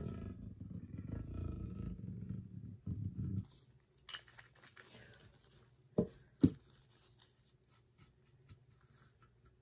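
Sponge brush rubbing alcohol ink across a metal tray, a low scrubbing noise that stops about three and a half seconds in. About two and a half seconds later come two sharp knocks half a second apart, the loudest sounds, then only faint light ticks.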